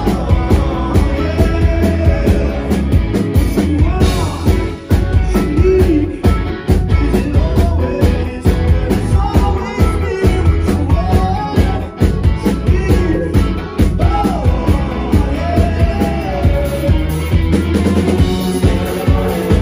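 Live rock band playing: drum kit, bass and electric guitar with a male vocal line sung over them, loud and dense.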